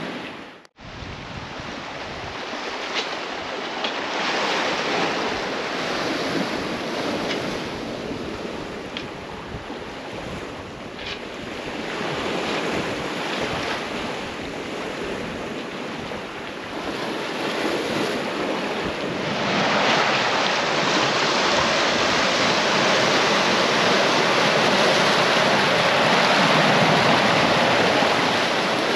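Sea water rushing and splashing past a sailing catamaran underway, with wind buffeting the microphone. About two-thirds in it steps up to a louder, fuller rush of churning wake water.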